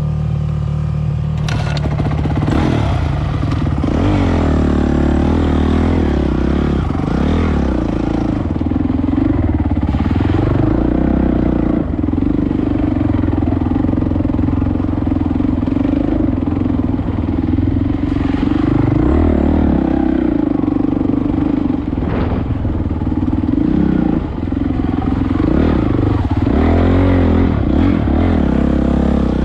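Honda 450 four-stroke enduro bike engine running under load, revving up and down as the bike works along deep muddy ruts. Clatter and an occasional sharp knock come from the bike bouncing through the ruts.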